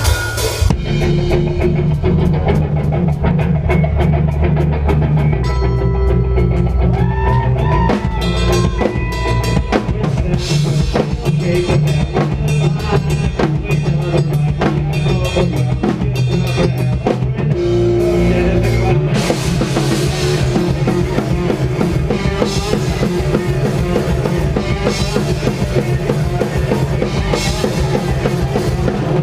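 Post-hardcore/metal band playing live at full volume: a drum kit driving a fast beat with bass drum and snare under sustained bass and other instruments. The texture shifts briefly about two-thirds of the way through, then the full band comes back in.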